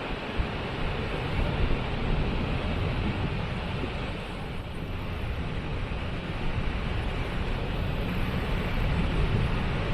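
Waterfall rushing: a steady wash of falling water with a heavy low rumble.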